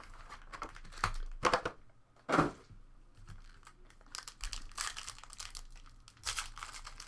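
Plastic wrapping of a box of 2016 Panini Phoenix football cards being torn and crinkled as it is opened, in sharp irregular strokes with a few louder rips about one to two and a half seconds in.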